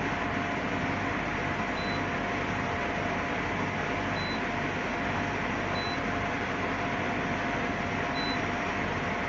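Portable spot air conditioner running steadily, its fan and compressor giving a constant rush of air with a hum. Four short high beeps sound at intervals over it.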